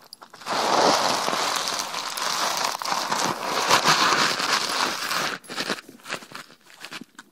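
Dog scratching itself against the floor: a dense, crackling rasp of fur and claws that runs for about five seconds, then breaks into a few scattered scrapes.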